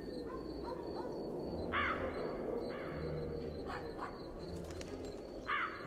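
Crow cawing in a film's opening ambience: two strong caws, about two seconds in and near the end, with a few fainter calls between, over a low steady hum.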